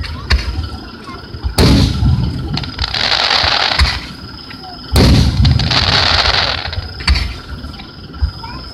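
Aerial fireworks shells bursting close by. Two big booms come about a second and a half and five seconds in, each trailing a long rumble and a crackling hiss, with a few sharper single pops between them.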